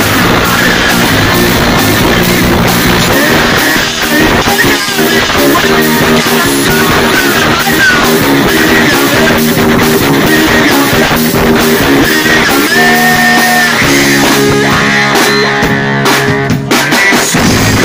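Live rock band playing loud, with electric guitars, electric bass and a drum kit.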